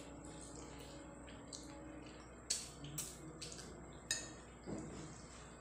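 Eating rice and fish curry by hand: fingers working the rice on a plate, with a few sharp clicks, one about halfway through and two more in the second half.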